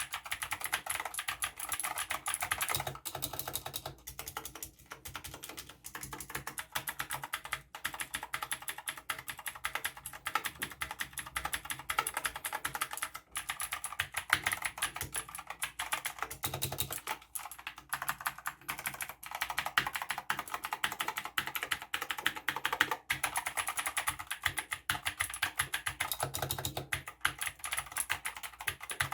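Fast, continuous typing on a Cooler Master CK530 V2 mechanical keyboard with clicky blue switches, with a few brief pauses.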